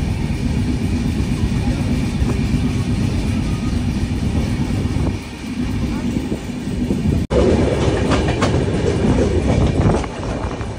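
Moving passenger train heard at an open coach door: a steady rumble of wheels on the track with wind. About seven seconds in, after a cut, a run of sharp clicks and clatter from the wheels joins the rumble.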